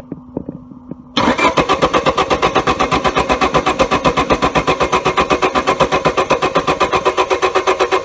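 Starter motor cranking a 1999 Honda Civic's 1.6-litre SOHC VTEC four-cylinder, starting about a second in, with an even beat of about six compression pulses a second. The engine turns over but never fires: there is no spark from the ignition coil.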